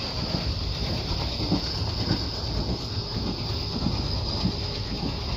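Passenger train running: a steady rumble and hiss of the moving train with irregular clacks of wheels over the track.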